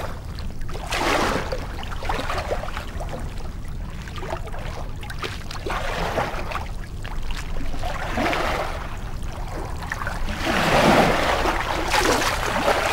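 Rushing water noise that swells and fades several times, loudest a little before the end.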